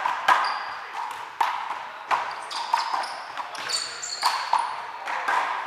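A wall handball rally: a small rubber ball struck by hand and slapping off the wooden wall and hardwood floor, seven or eight sharp smacks that ring in the big hall. Sneakers squeak on the floor in the middle as the players scramble.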